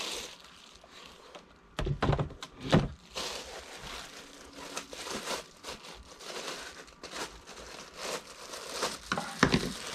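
Packaging rustling and crinkling while vacuum cleaner parts are lifted out of a box, with a few knocks as pieces are set down, about two seconds in and again near the end.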